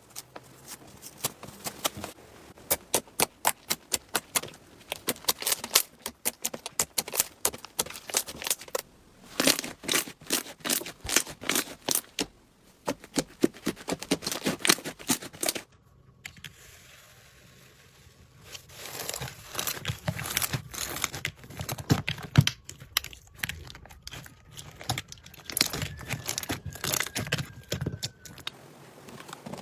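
Slime being squeezed, poked and stretched by hand, giving dense runs of sharp crackles and pops. It breaks off suddenly a little past halfway, goes quiet for a couple of seconds, then a new batch of slime starts crackling.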